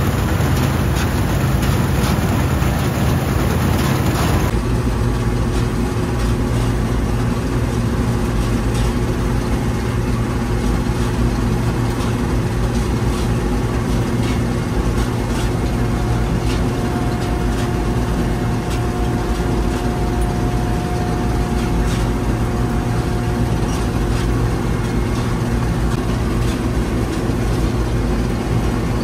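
Bizon Super Z056 combine harvester's six-cylinder diesel engine running steadily, with an abrupt change in its sound about four seconds in.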